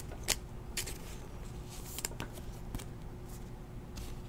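Trading cards being handled and flipped through by hand, with scattered light flicks and rustles of card stock over a faint steady hum.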